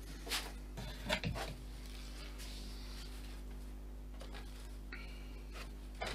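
A few light knocks and rubbing as a balsa model-plane fuselage is handled and set down on a workbench, over a steady electrical hum.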